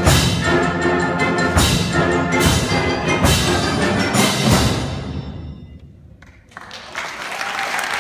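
School wind band playing the closing bars of a fast piece, several loud accented chords with drum and cymbal hits, the last chord dying away about five seconds in. Audience applause starts about a second later.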